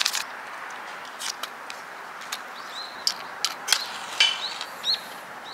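Several sharp scrapes of a ferrocerium rod struck with its steel to throw sparks onto waxed fibre kindling, over a faint steady hiss. A few short bird chirps are heard now and then.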